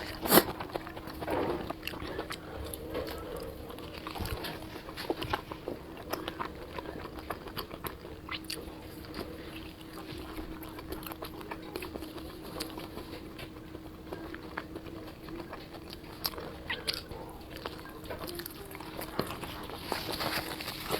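Close-up eating sounds: repeated crunchy bites and chewing of deep-fried skewered food, with a sharp, loud bite just after the start, over a faint steady hum.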